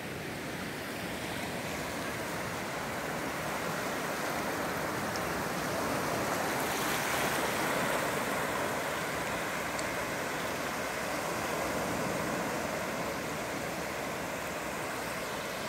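Small waves washing in over shallow water and sand, a steady rush of surf that swells a little about halfway through.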